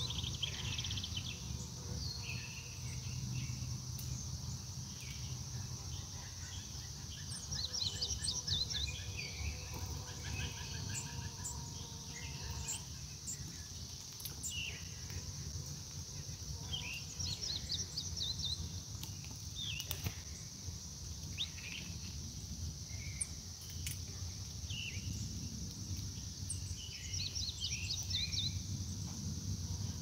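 Small songbirds chirping in short quick runs of notes, with scattered single calls, over a steady high-pitched drone of insects and a low rumble. A single sharp click sounds about two-thirds of the way through.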